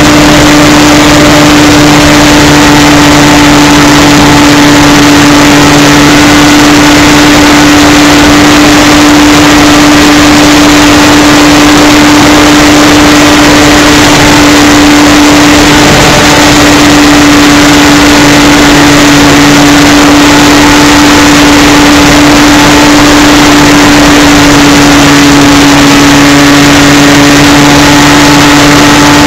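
Radio-controlled model airplane's motor and propeller running steadily in flight, heard from on board: one steady droning tone, dipping slightly in pitch now and then, over loud rushing wind and vibration noise.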